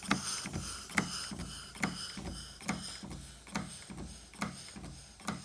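Stuart beam model steam engine running slowly, giving a regular ticking beat: a sharp tick a little less than once a second with a softer tick between each pair.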